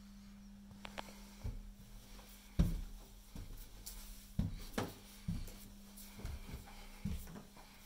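Footsteps climbing a carpeted staircase: about six dull, irregularly spaced thumps, over a faint steady low hum.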